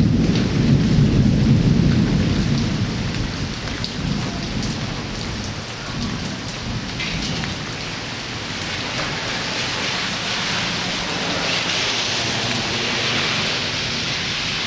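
Thunder rumbling over steady rainfall. The low rumble fades after the first few seconds, leaving the even hiss of rain, which grows a little heavier near the end.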